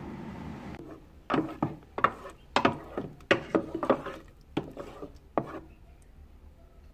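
An air fryer's fan running with a steady whir that stops just under a second in. Then a utensil scrapes and knocks in the basket, about ten sharp strokes over four seconds, as the eggs are stirred or scooped out.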